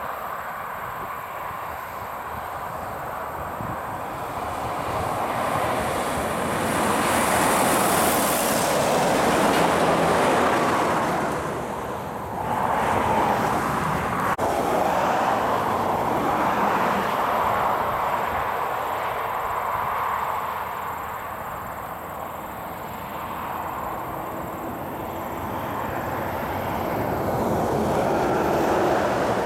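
Heavy trucks and cars passing on a highway: engine and tyre noise swells as each vehicle goes by and eases between them, with a brief lull about halfway through and another build-up near the end.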